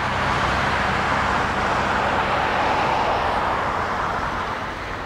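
Four CFM56 turbofan engines of an Airbus A340-300 at takeoff power during the takeoff roll: a steady rushing jet noise that eases slightly near the end.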